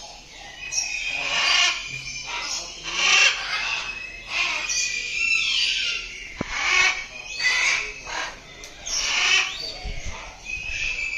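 A flock of birds in a bird park calling over one another in short, repeated calls, one after another with hardly a pause.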